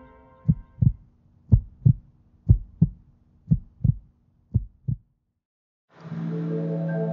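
Heartbeat sound effect: paired low thumps in a lub-dub rhythm, about one beat a second, five beats that stop about five seconds in. After a second's silence, a steady ambient music drone comes in near the end.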